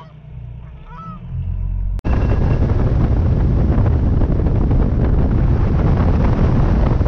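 Geese honking a few times over a low hum. About two seconds in, after a sudden cut, a loud steady rush of wind buffets the microphone.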